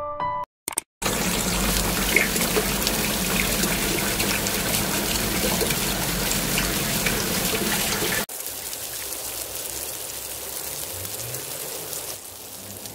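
Tap water pouring and splashing steadily into a plastic basin. It breaks off suddenly about eight seconds in to a quieter steady hiss.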